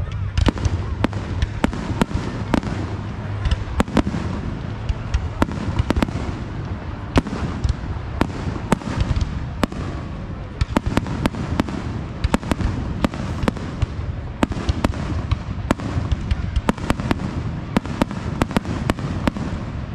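Aerial fireworks display: shells bursting in quick succession, about two or three sharp bangs a second over a steady low background.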